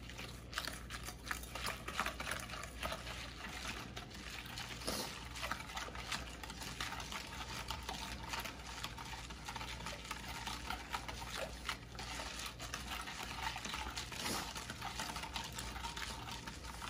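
A whisk stirring a thin, watery mix of sausage seasoning, cure and water in a glass bowl. The liquid stirs steadily, with many small ticks of the whisk against the glass.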